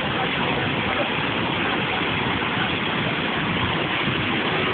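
Floodwater rushing past in a steady, unbroken noisy rush.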